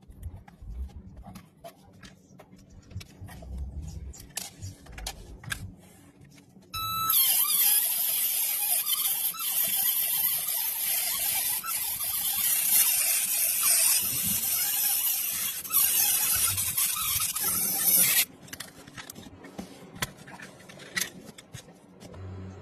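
A power tool or blaster used in rust-stripping work, running with a loud, high hiss for about eleven seconds; it starts and cuts off abruptly. Before and after it come light, scattered clicks and knocks.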